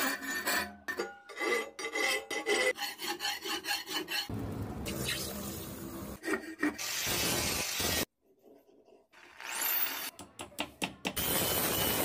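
A hand file rasping across the steel edge of a billhook blade in quick repeated strokes. After about four seconds it gives way to water pouring and splashing into a metal pot, and near the end an angle grinder runs against the steel.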